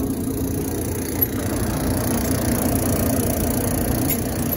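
Maytag electric dryer running, its drum turning with a loud, steady mechanical rumble: the abnormal noise the customer complains of when it starts to turn. A short click sounds about a second in.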